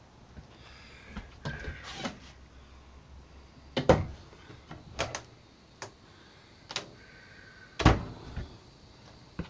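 Wooden RV cabinet doors being opened and shut by hand: a series of knocks and latch clicks, the loudest about four seconds in and again near the end.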